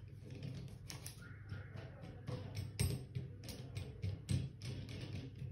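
Faint scattered clicks and light scrapes of metal fixing parts and washers being screwed and tightened by hand on the threaded shank of a chrome kitchen mixer tap.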